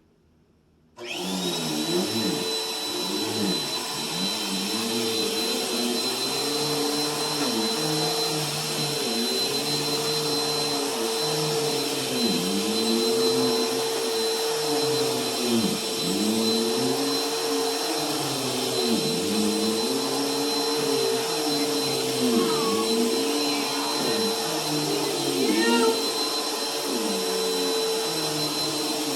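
Bissell vacuum cleaner switching on about a second in and running steadily with a high whine, its sound swelling and dipping about every three seconds as it is pushed and pulled across carpet.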